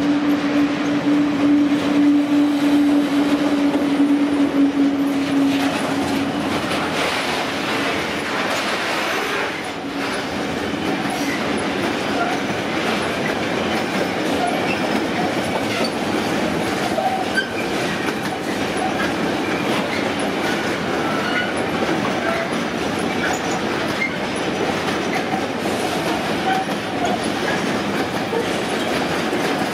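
SBB Cargo Re 620 (Re 6/6) electric locomotive passing close with a steady hum, which fades after about six seconds, followed by a long train of grain hopper wagons rolling past, wheels clattering rhythmically over the rail joints with occasional faint squeals.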